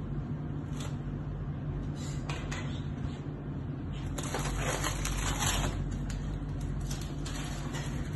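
A glass pot lid lifted off with a light click, then aluminium foil crinkling in bursts of rustling as it is peeled off the sealed rim of a dum-cooked biryani pot. A steady low hum runs underneath.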